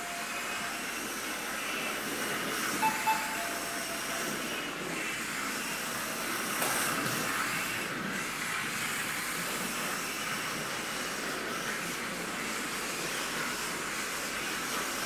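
Kyosho Mini-Z RC cars running laps on a carpet track: a steady hiss of small electric motors and tyres. Two brief louder sounds come about three seconds in.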